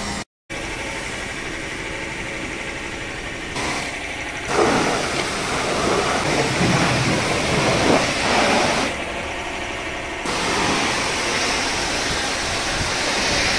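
High-pressure washer running, its water jet hissing as it sprays a car. The spray gets louder and rougher from about four and a half seconds in to about nine seconds, then settles into a steady hiss.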